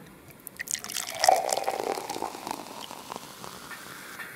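Sparkling wine poured from a bottle into a glass flute: a few drips at first, then a burst of splashing about a second in that fades into the hiss of fizzing foam.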